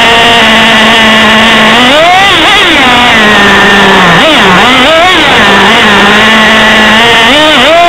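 Traxxas T-Maxx 2.5's small two-stroke nitro engine, heard very loud and close from a camera mounted on the truck, running at a steady pitch and then revving up and down in bursts about two seconds in, around four to five seconds in and again near the end.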